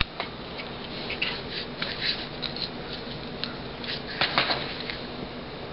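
Handling noise from an LCD TV power supply circuit board being turned over and set down on a desk: scattered light clicks and rustles, with a short cluster of sharper clicks about four seconds in.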